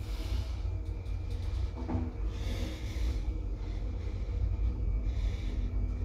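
1960s Del Bo P.Stam traction elevator running: a steady low rumble with a faint hum over it, and a few short hissy swells.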